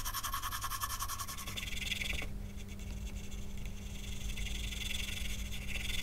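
Graphite pencil scratching on paper in rapid back-and-forth hatching strokes, shading in a shadow area.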